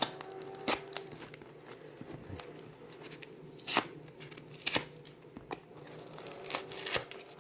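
Packaging being unwrapped by hand: crinkling and tearing in a few short, sharp bursts, with a cluster of crackles near the end.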